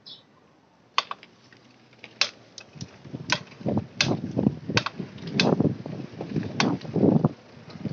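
Mountain bike rolling down a dirt path, its tyres running over the ground in swells of rolling noise that grow louder as the ride goes on. Irregular sharp clicks and rattles come from the bike going over bumps, starting about a second in.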